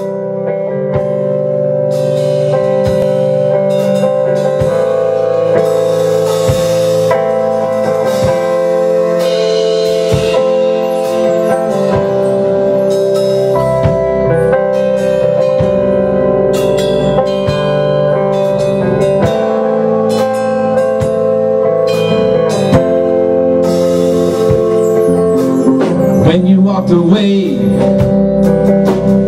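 A rock band playing live: electric guitar over a drum kit. The level builds over the first couple of seconds, then the music continues steadily.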